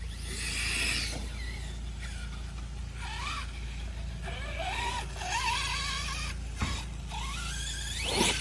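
Remote control car's motor whining in repeated glides that rise and fall in pitch as the throttle is worked. There is a sharp knock about two-thirds of the way through, and a fast rising whine near the end.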